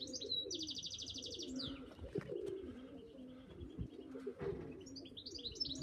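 Pigeons cooing in wavering low calls, while a small songbird sings the same short phrase twice: a few chirps, a fast high trill, then falling notes, near the start and again near the end.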